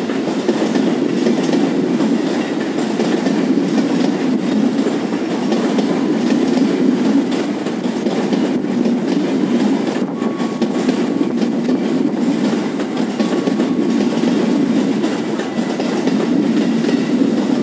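A train rolling past on the station tracks: steady, loud noise of wheels running on the rails.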